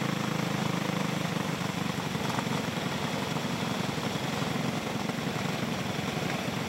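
Small single-cylinder go-kart engines of cage karts running on a dirt track, heard as a steady, continuous drone.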